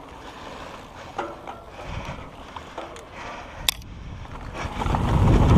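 Mountain bike ridden on a dirt trail, heard from a camera on the rider: tyres rolling and the bike rattling, with a few sharp clicks. About four and a half seconds in, a loud rush of wind on the microphone swells up as the bike picks up speed.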